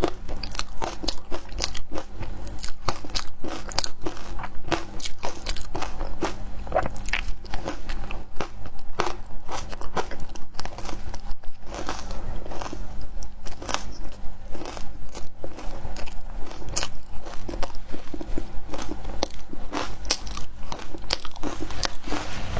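Close-up biting and chewing of frozen matcha ice: a steady stream of sharp, crackly crunches, several a second.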